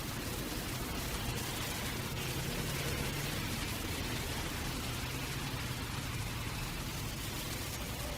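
Steady rain hissing and pattering, with the low rumble of city traffic underneath.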